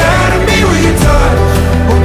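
Background pop song: a singing voice over a steady band accompaniment.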